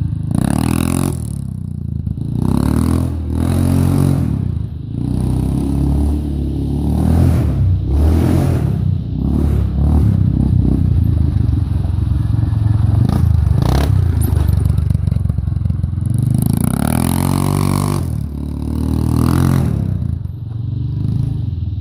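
Yamaha Kodiak ATV's single-cylinder four-stroke engine breathing through a homemade exhaust, the stock muffler with its end cap cut off and baffles removed and a drilled, insulation-packed pipe slipped over the outlet. It is ridden hard, revving up and dropping back again and again.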